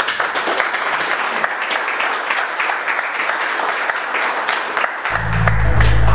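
Audience applauding, a dense patter of claps. About five seconds in, music with a heavy, deep bass comes in.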